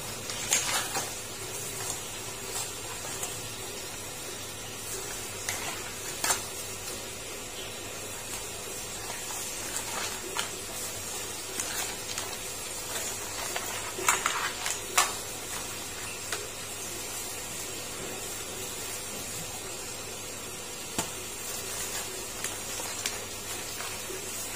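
Cut raw crab pieces being mixed with egg and seasoning by a plastic-gloved hand in a steel bowl, with scattered clacks of shell against the bowl, the loudest about half a second in and again around fourteen to fifteen seconds in, over a steady hiss.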